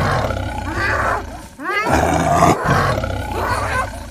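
A big cat roaring twice, each roar long and deep.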